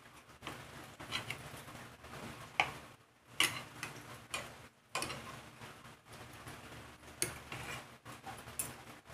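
Fork and knife clinking and scraping against a plate while cutting pancakes: irregular light clicks, about one every second or so.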